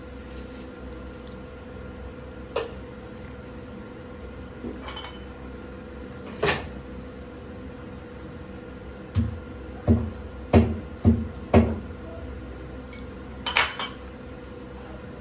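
Steel kitchen pots and utensils being handled: a few scattered sharp clinks, then a run of five dull thumps about half a second apart, and a quick rattling clatter near the end.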